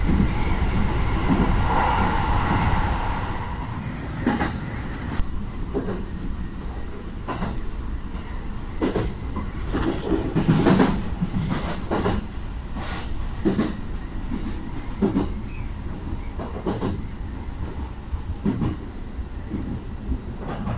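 Train running along the track, heard from on board: a steady rumble with the wheels clacking over rail joints about every second and a half. It is louder for the first few seconds.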